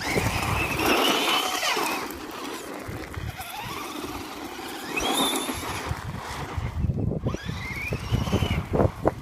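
Battery-powered electric RC car motor whining up and down in pitch as the car speeds up and slows, three times, over the rough noise of the car running on the ground.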